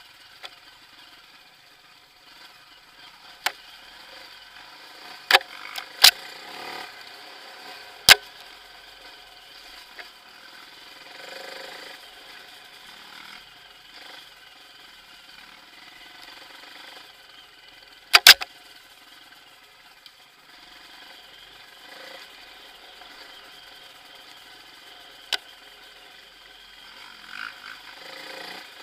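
Off-road dirt bike engine running at a steady, low speed over a rough forest trail. Several sharp knocks from the bike jolting over bumps stand out above it, the loudest about six, eight and eighteen seconds in.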